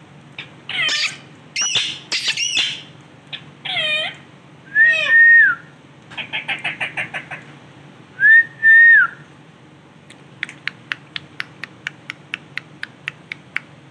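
Male ringneck parrot vocalizing: a few harsh screeches, then two loud level whistles that drop at the end, with a quick chattering run between them. Near the end comes a long run of rapid sharp clicks, about five a second.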